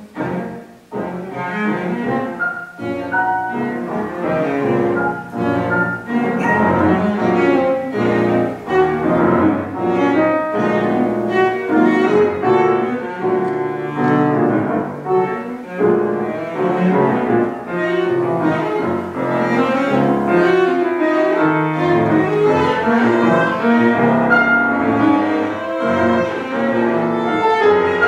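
Cello and piano playing a classical scherzo together, live in a concert hall, with many quick, short notes. There is a momentary drop in level about a second in.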